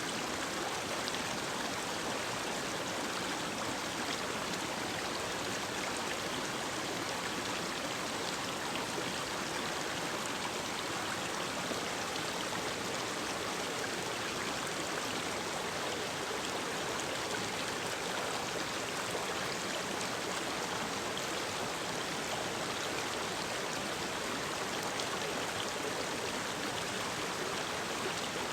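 Mountain river or stream flowing, a steady rush of water over rocks.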